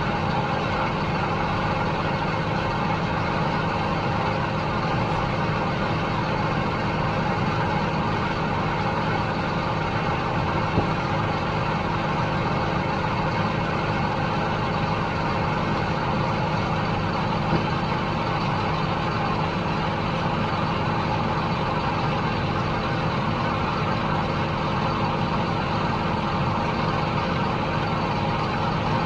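Heavy diesel farm machinery running steadily under load: a constant engine drone with several steady whining tones. Two brief clicks come about 11 and 17 seconds in.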